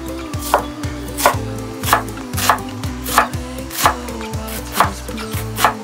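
Chef's knife dicing an onion on a wooden cutting board: about eight evenly paced chops, roughly one and a half a second, each a crisp knock of the blade through the onion into the wood. Soft background music runs underneath.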